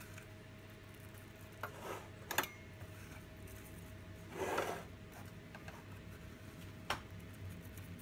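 Seeds being pinched from a small metal bowl and sprinkled by hand over dough buns: a few soft clicks and light rustles, with one longer rustle about halfway, over a faint steady hum.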